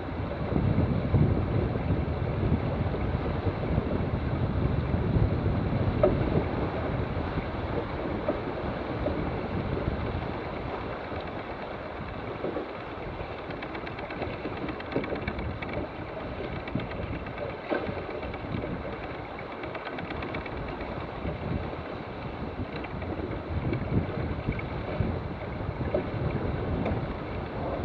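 Wind buffeting the microphone and water rushing along the hull of a J/111 sailing yacht under sail: a steady rushing noise, somewhat louder in the first several seconds.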